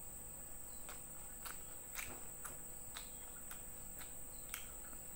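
Close-up eating sounds: chewing with short, irregular wet mouth clicks and smacks as fried fish and rice are eaten by hand. Behind them is a steady high-pitched drone of insects.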